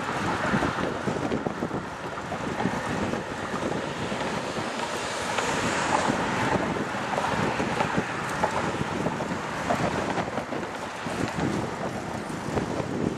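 Wind buffeting the camera microphone during a bicycle ride, a continuous rushing noise.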